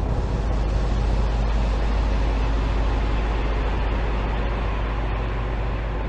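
Dark ambient drone: a steady, deep rumble under a dense hiss, with faint held tones in the middle.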